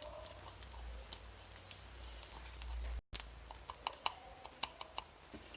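Small spoon stirring honey and dried ginger in a glass, making light scattered clicks and scrapes against the glass. A low hum under the first half stops abruptly about three seconds in.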